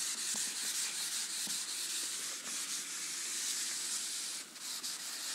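Whiteboard duster wiped back and forth over a marker-written whiteboard: a steady scratchy hiss of rubbing strokes, with a short break about four and a half seconds in.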